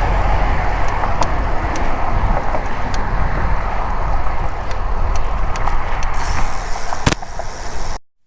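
Wind buffeting the microphone with rolling road noise while riding a road bicycle, with faint scattered ticks. A sharp click comes about seven seconds in, and the sound cuts out briefly near the end.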